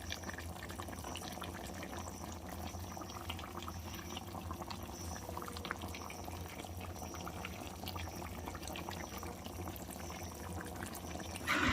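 Chicken curry cooking on a low gas flame in a kadai, softly sizzling and bubbling in the fat it has released, with many small scattered pops over a faint steady hum.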